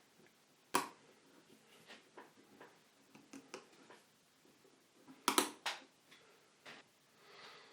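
Light clicks and taps from handling a small soldered kit circuit board, as the LM358 op-amp chip is pushed into its socket. The sharpest click comes about a second in, and a quick cluster of clicks comes near the middle.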